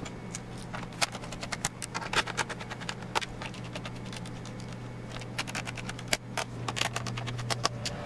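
Irregular light clicks and scrapes of a small Phillips screwdriver working screws into a laptop's plastic bottom cover, with hands pressing and handling the panel, over a steady low hum.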